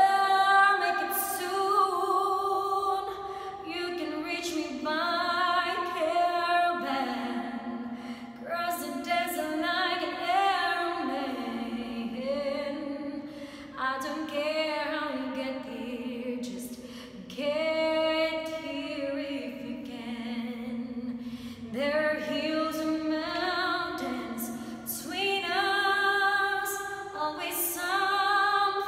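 A woman singing solo a cappella, in long held phrases whose notes waver, with short pauses for breath between phrases.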